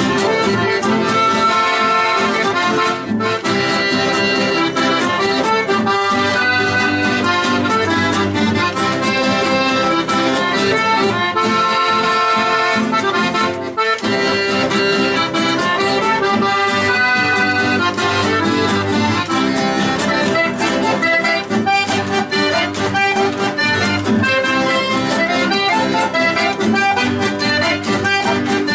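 Accordion playing a lively chamamé melody, dense and continuous with a quick, steady rhythm.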